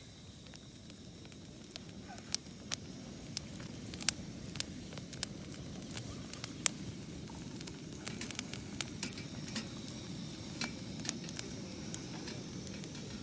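Wood campfire crackling, with sharp pops coming at irregular intervals over a low, steady rush of the flames; the loudest pop comes about six and a half seconds in.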